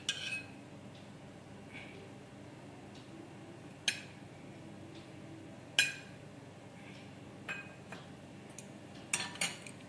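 A metal spoon clinking against a small steel bowl and an appe pan as a couple of drops of oil are put into each cavity. There are single sharp clinks about four, six and seven and a half seconds in, then a quick run of several clinks near the end.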